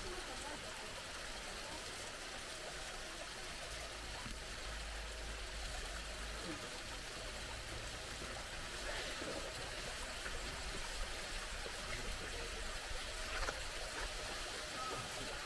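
Steady rush of flowing water from the pool in a bear enclosure.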